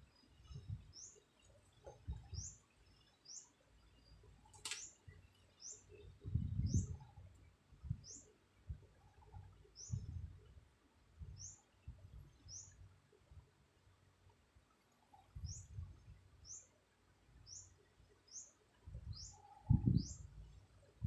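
A small bird chirping over and over, short high notes that drop quickly in pitch, about one a second with brief gaps, over low irregular rumbles and one sharp click a few seconds in.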